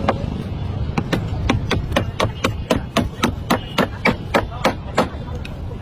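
Hammer striking wood in a quick, even run of blows, about four a second, stopping shortly before the end, with a steady low rumble underneath.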